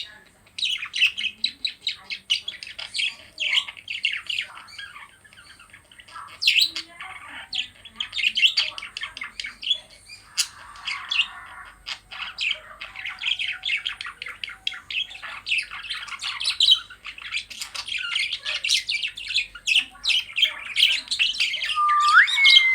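Pet budgerigar warbling and chattering: a fast, busy stream of high chirps and squawks with a couple of short pauses, a brief rasp about ten seconds in, and a rising whistle near the end.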